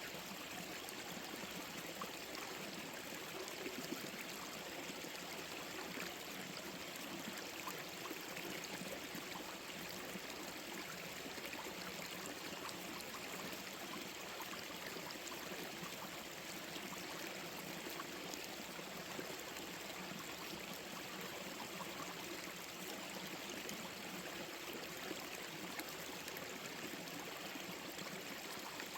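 Small forest stream flowing over rocks: steady rushing and gurgling water.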